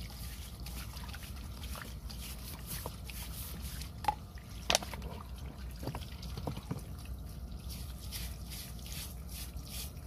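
Water dripping and trickling into a shallow puddle, with two sharp clicks a little past four seconds in.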